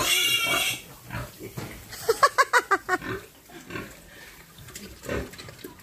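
Pigs squealing and grunting. A high squeal cuts off just under a second in, then a quick run of short squeaky grunts comes about two seconds in, and one lower grunt near the end.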